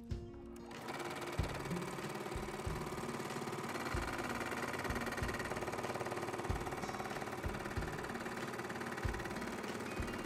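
Bernette b70 deco embroidery machine starting about a second in and stitching steadily, a fast even needle clatter with occasional low knocks.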